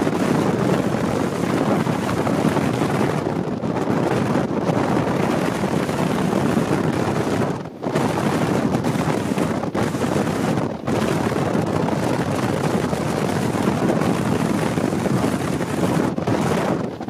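Wind buffeting the microphone on a fast-moving motorboat, over the steady rush of its engine and the water along its hull. The noise dips briefly a few times.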